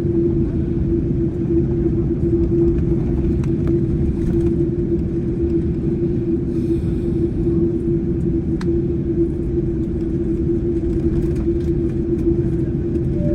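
Boeing 747-8i's GEnx jet engines running, heard inside the passenger cabin as a loud, steady low rumble with a constant hum through it.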